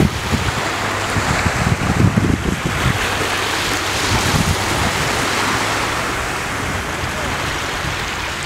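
Steady rush of moving water with wind buffeting the microphone, the low buffeting strongest in the first few seconds.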